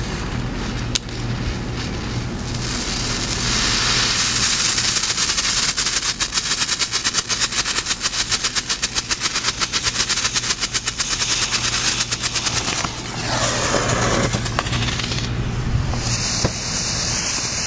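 Lit smoke bomb hissing as it spews smoke and sparks, breaking into a fast, even sputter for several seconds in the middle before settling back to a hiss.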